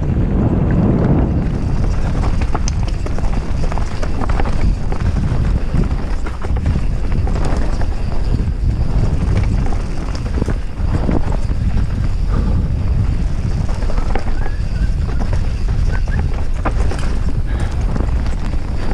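Mountain bike riding fast over a rough trail: a steady run of knocks and rattles as the tyres hit rocks and roots and the bike clatters, over heavy wind rumble on the camera microphone.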